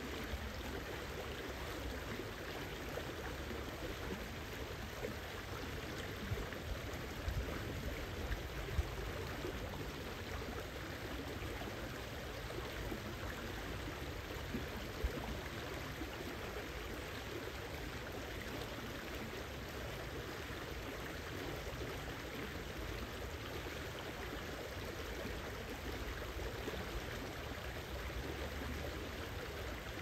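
Shallow river running over rocks through a small riffle, a steady babbling and splashing of water.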